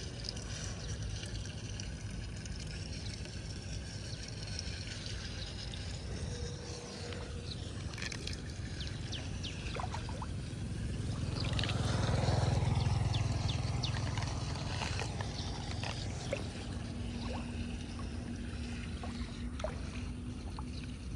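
Muddy floodwater swirling and draining down a freshly cleared storm drain, sloshing with many small splashes and drips. It swells louder for a few seconds around the middle as a foot stirs the water over the drain.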